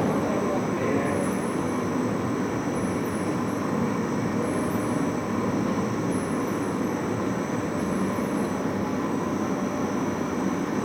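Plastic bag cutting machine running steadily, with a faint high chirp repeating about every second and a half as it cycles.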